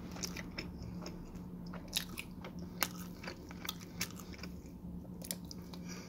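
A person chewing and biting pizza: irregular wet clicks and small crunches from the mouth. A steady low hum runs underneath.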